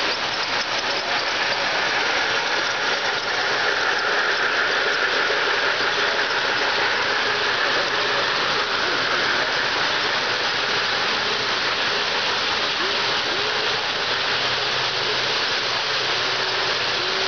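O-gauge three-rail model freight trains rolling past, a steady rumbling whir of wheels on the track and electric locomotive motors, over the hum of voices in the hall.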